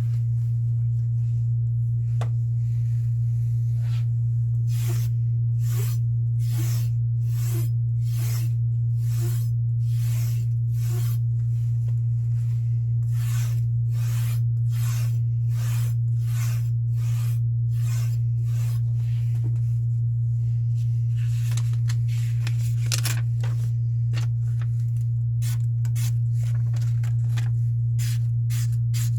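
Electric scissor-grinding machine running with a steady low hum while a knife edge is drawn against its spinning cloth and leather wheels in short rasping passes, about one a second, with a quicker flurry past the middle. This is stropping the edge after the burr has been removed.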